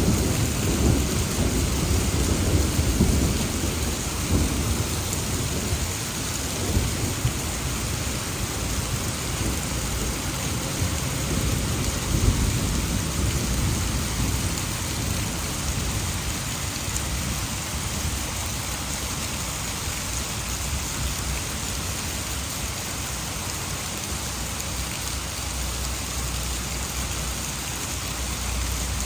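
Heavy rain pouring down in a steady hiss, with a low roll of thunder that rumbles through the first few seconds and fades away.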